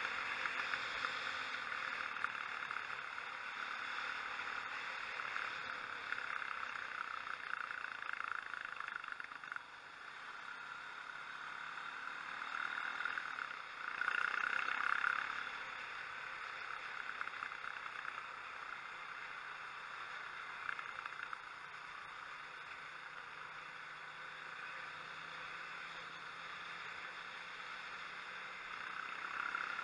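Motorcycle engine and wind noise picked up by a helmet-mounted camera while riding, a steady drone that swells briefly about halfway through.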